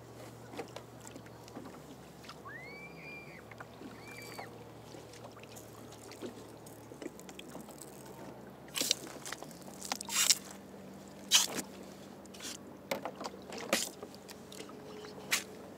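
Knocks and splashes on a fishing kayak afloat, over a low steady hum. Two short whistle-like tones that rise, hold and fall come about three seconds in, and from about halfway through sharp loud knocks sound six or so times.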